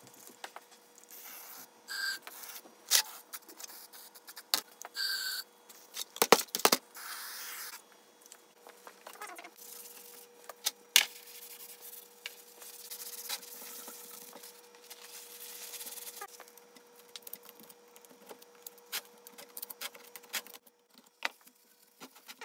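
Scattered metal clicks and taps with a few short scraping strokes and brief squeaks, from hand work on small metal parts.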